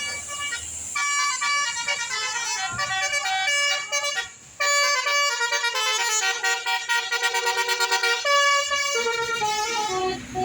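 Bus 'telolet' musical air horn playing a fast tune of quickly changing notes, with a brief pause about four seconds in and lower notes near the end.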